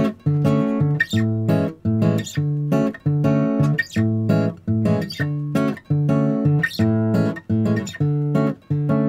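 Background music: acoustic guitar strummed in a steady rhythm, about two strums a second.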